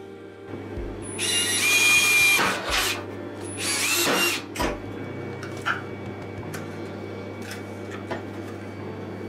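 Small handheld power tool running in two short bursts, the first about 1.5 s long and the second about a second, each starting with a high whine that drops as it bites into a small black plate. A few light clicks of handling follow.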